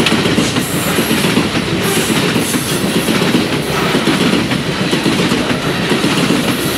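Coal-laden freight hopper wagons rolling past close by: a steady, loud rumble and rattle of steel wheels clattering over the rail joints.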